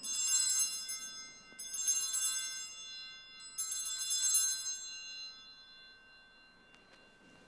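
Altar bells rung three times at the elevation of the host during the consecration, each bright ring fading away before the next, the last dying out about halfway through.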